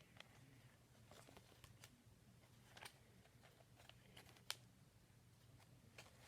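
Near silence: room tone with a few faint clicks and taps of objects being handled, the clearest about a second in, near three seconds and halfway through.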